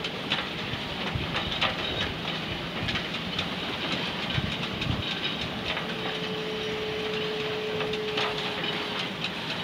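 Steady rushing noise of wind on the microphone, with a few light knocks and clicks as a fish is handled. A faint steady hum comes in about six seconds in and stops near the end.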